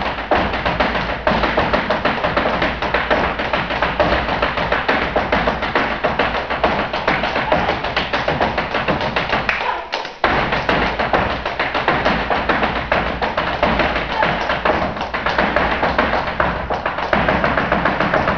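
Flamenco zapateado: rapid, continuous heel and toe stamping of a dancer's shoes on a wooden stage, with a brief break about ten seconds in.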